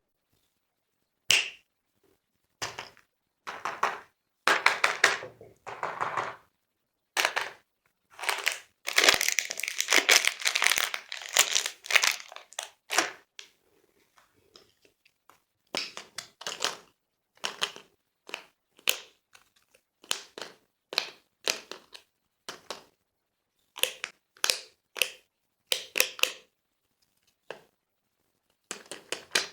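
Candy wrappers and packaging being torn open and crinkled in many short, separate bursts, with a longer stretch of continuous crinkling and tearing about nine to twelve seconds in.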